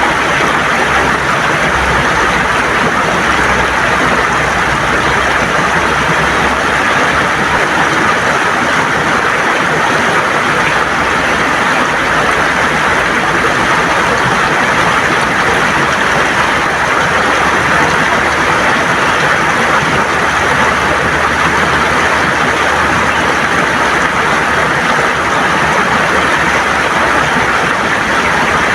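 River water flowing and gurgling over stones, a steady rush without breaks.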